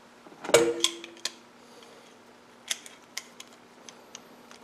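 Small metal tools clinking: one sharp clank with a brief ringing tone about half a second in, then several light clicks as pliers fit a small C-clip onto the gear shaft of a windshield wiper motor gearbox.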